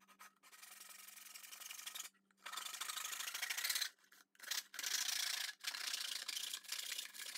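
A hacksaw blade sawing back and forth through a cardboard chip canister, a dry rasping that comes in runs of strokes with brief pauses between them.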